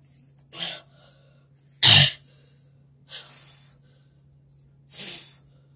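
A person breathing hard, with short coughs and hissing breaths. The loudest, sharpest one comes about two seconds in. A faint steady low hum lies underneath.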